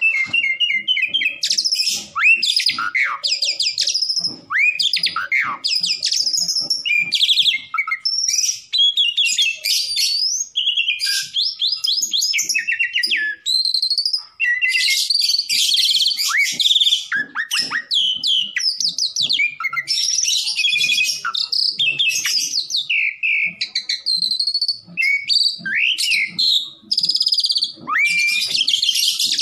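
Asian pied starling (jalak suren) song: a fast, nearly unbroken run of varied whistles, rising and falling slurs and rapid rattling trills, with only brief pauses between phrases.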